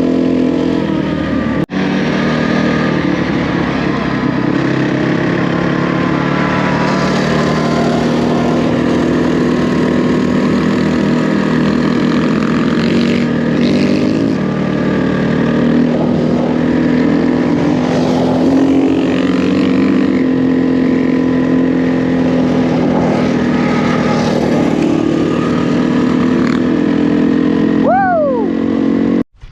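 Enduro motorcycle engine running steadily while riding, its note holding fairly even throughout, with a brief dropout about two seconds in.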